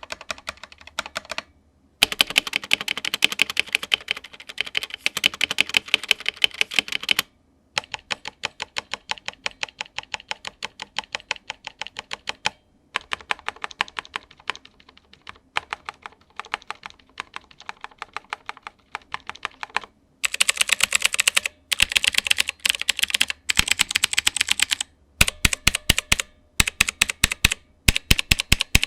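Typing on a Gamen Titan III 60% mechanical keyboard with clicky Outemu blue switches, in fast runs of keystrokes broken by short pauses. The switches click and ping, and the case is empty ABS with no foam. Near the end come several slower, separate, heavier strokes.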